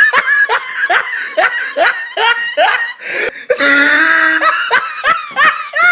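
A person laughing hard in quick, high-pitched bursts, about three a second, with a longer held high note about halfway through.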